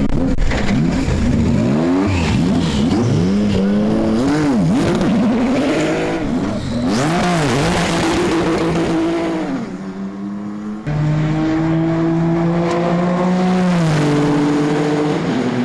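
Two-seat IndyCar racing car engine revving in quick rises and falls as the car launches from pit lane, then pulling at a steadier, slowly rising pitch, with an upshift near the end.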